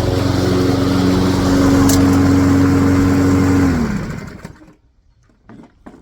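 A new Toro Recycler walk-behind gas lawnmower running steadily, then shutting off about four seconds in, its pitch falling as the engine winds down to a stop. A couple of faint knocks follow.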